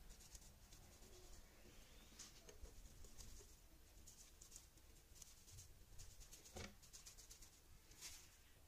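Faint patter of dried herbs shaken from a spice shaker onto a baking tray of zucchini and tomato slices, in several short spells, with one light knock about two-thirds of the way through.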